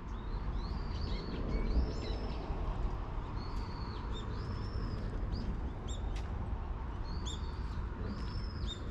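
Small birds chirping repeatedly with short, high, arching calls, over a steady low rumble.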